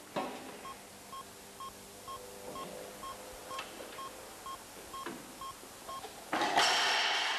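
A short electronic beep repeating about twice a second at one steady pitch, with faint mechanical noise from the Magnabend electromagnetic sheet metal folder being worked under it. Near the end the beeping stops and a loud noisy rush of about a second follows, as the bent sheet metal is handled on the machine.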